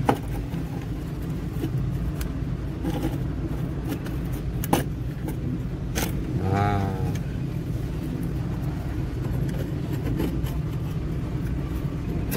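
A motor vehicle engine idling with a steady low rumble. Over it come a few sharp clicks of a fuel-tank float sender's metal parts being handled as its rubber gasket is pulled off, and a brief wavering pitched sound a little past halfway.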